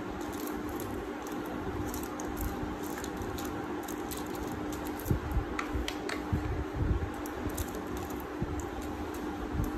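Tint brush working hair colour onto a hair swatch on aluminium foil: soft squishing and foil crinkling, with a few short knocks and ticks about five to seven seconds in, over a steady low hum.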